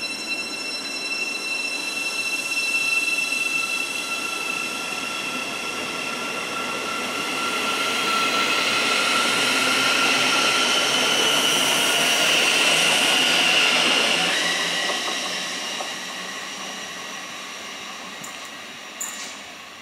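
Siemens Desiro City Class 700 electric multiple unit running past: a steady whine of several held tones over the rumble of wheels on rail, swelling for a few seconds and then fading away. A short sharp click near the end.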